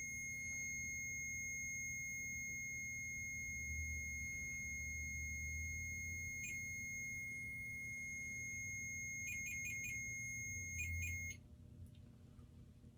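Steady high-pitched electronic alarm tone, with a quick run of short chirps near the end, before it cuts off suddenly about eleven seconds in.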